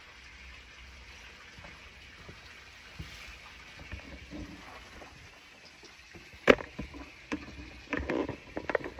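Large stiff paper posters and kraft-paper packing being handled on a cardboard box: faint rustling, then a sharp snap or tap about six and a half seconds in. A cluster of knocks and handling clicks follows near the end.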